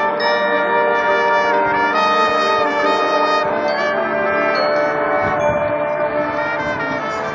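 Marching band brass section playing loud held chords, with trumpets and trombones, the chords shifting every second or two.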